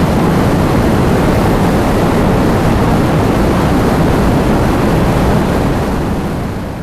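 Heavy rain with wind: a dense, steady rush that fades out near the end.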